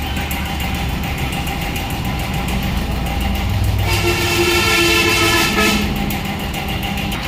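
Steady low machine hum, with a pitched horn-like tone that comes in about four seconds in and lasts roughly two seconds.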